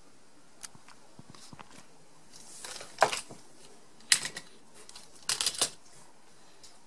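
Handling noises: a brief rustle ending in a sharp click about three seconds in, another click a second later, and a quick cluster of clicks and rattles near the end.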